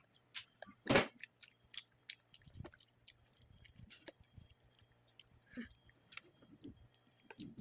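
A child chewing and eating food close to the microphone: scattered small wet clicks and crunches, with one louder sharp click or knock about a second in.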